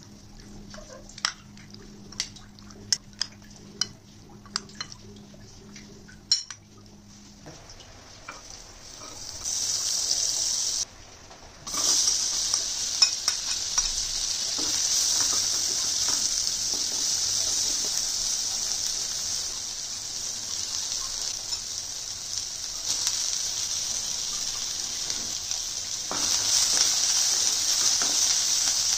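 A metal spoon clicking against a ceramic bowl while mixing raw chicken with spices, a few sharp clicks over the first seven seconds. Then sliced onions and green chilies sizzling in hot oil in a nonstick kadai, a steady hiss that grows a little louder near the end.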